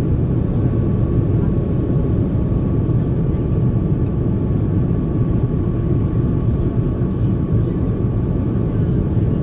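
Steady cabin noise inside an Airbus A330-300 in flight: a deep, even rumble of engine and airflow, with a faint high steady tone above it.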